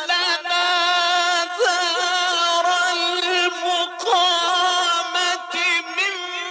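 Male Quran reciter chanting in a high, drawn-out melismatic voice, holding long wavering notes with a few brief breaks for breath or ornament.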